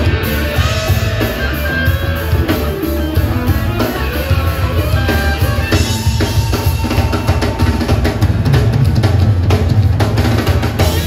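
Live band playing loud rock-pop music, led by a drum kit and guitar with keyboards, with a strong, steady bass.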